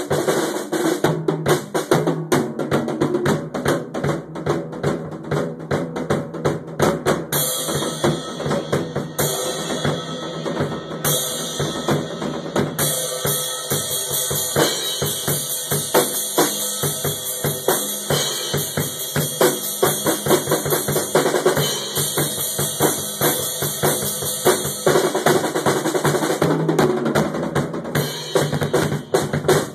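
Loud, fast drumming on a drum kit with other instruments underneath: a dense, unbroken run of strikes, with cymbals ringing through the middle stretch.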